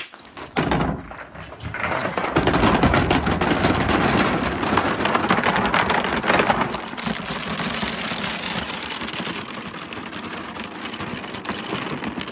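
Crystal balls and colourful plastic balls rolling down a wooden pegboard chute and dropping into a plastic tub of balls. The sound is a dense rolling rumble and clatter with a few separate knocks before it. It builds about two seconds in, is loudest for the next few seconds, then eases a little.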